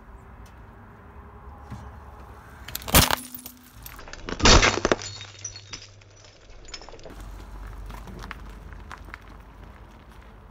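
Glass coffee jar crushed under a car tyre: a sharp crack and shatter about three seconds in, then a second, louder burst of breaking glass about a second and a half later, with brief crackling of shards after each.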